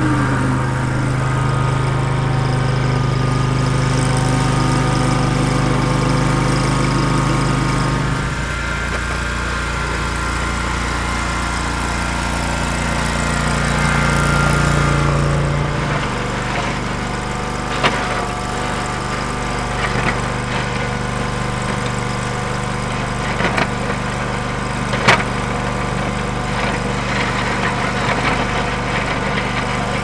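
Ventrac SSV sidewalk snow vehicle's engine running steadily while clearing snow, its note shifting partway through. In the second half, while it pushes snow with the plow blade, there are a few sharp knocks.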